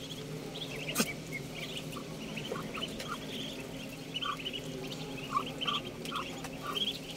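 A brood of Muscovy ducklings peeping continuously in quick high chirps as they feed, with some lower short calls among them and a single sharp click about a second in.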